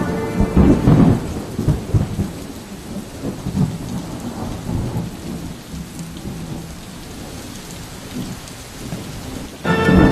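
Thunderstorm: rumbling thunder over steady rain, heaviest in the first couple of seconds and then rolling away more quietly. Music comes back in just before the end.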